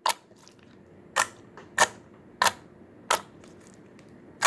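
Clear slime being poked, giving sharp popping clicks about every two-thirds of a second, six in all.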